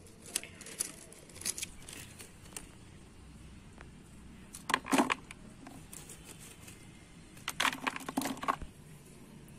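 Dry chunks of groundnut oil cake being dropped by hand into a plastic bucket, clattering against the plastic and each other in scattered knocks, the loudest cluster about five seconds in and another near eight seconds.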